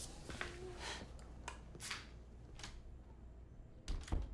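Quiet room with a few faint, short clicks and rustles spread out, and a slightly louder pair of clicks near the end.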